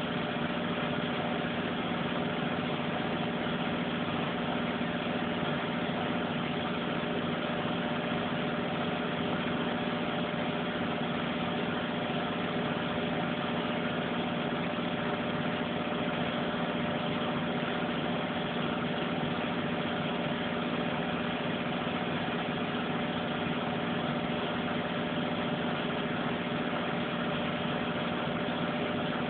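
Front-loading washing machine on its final spin, the drum spinning at a steady speed with an even motor hum and whine.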